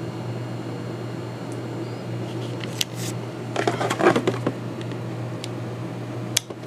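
Light clicks and rubbing of a steel revolver being handled, a cluster near the middle and one sharp click near the end, over a steady low hum.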